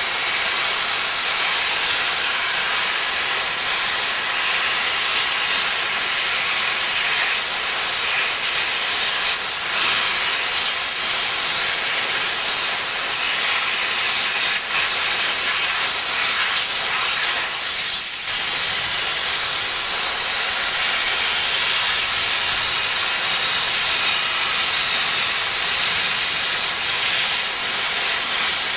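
Weidner dry steam cleaner lance blasting a steady jet of steam onto a forklift's wheels: a loud, high hiss that dips briefly about two-thirds of the way through.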